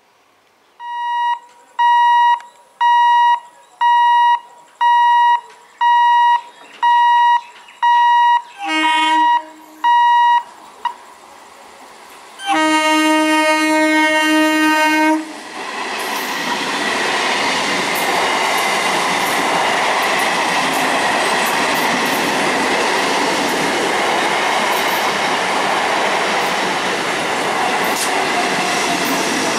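A pitched electronic warning beep repeating about once a second for around ten seconds. Then an Indian EMU local train's horn gives a short toot and a held blast of a couple of seconds, and the train runs past at speed: a steady rumble of wheels on rail with occasional clicks over the joints.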